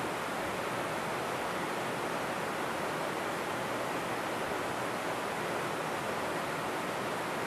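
Steady, even rushing noise with no distinct events, unchanging throughout.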